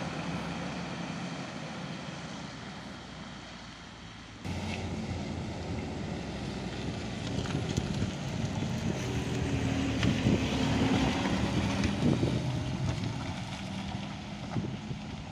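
Road traffic engines. A vehicle engine fades away over the first few seconds. Then, after an abrupt jump in sound, a closer engine grows louder and eases off again near the end as a van drives past on the gravel road.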